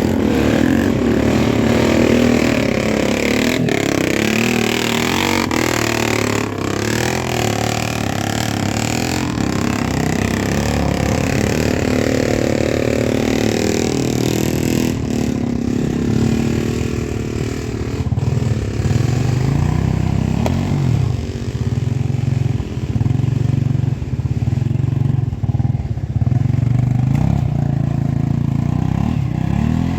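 Motorcycle engine running with its pitch rising and falling as it is revved and eased off, with several sharp knocks and clatter over the ride.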